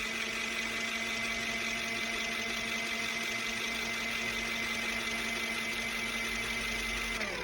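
Small electric motor of a portable mini washing machine running at a steady speed with a constant whine, then switching off near the end and winding down, its pitch falling.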